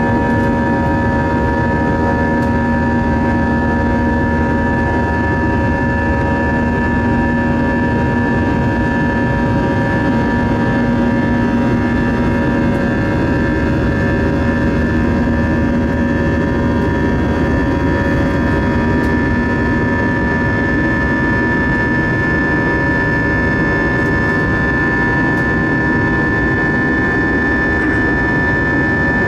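Airbus A320 jet engines in flight heard from inside the cabin next to the wing: a steady roar with several steady whining tones riding on it.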